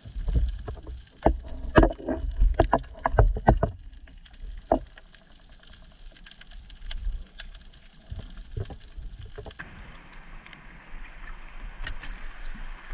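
Underwater, a rapid cluster of knocks and clicks from a speargun and a speared grouper being handled over the first few seconds, then a few scattered knocks. Near the end, at the surface beside an inflatable dinghy, a steady hiss of wind and lapping water.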